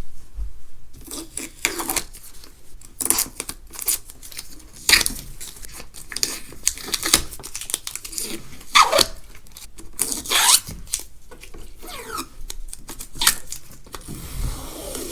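Stickers being peeled off an iMac: a series of irregular short ripping rasps as the adhesive lets go, some falling in pitch.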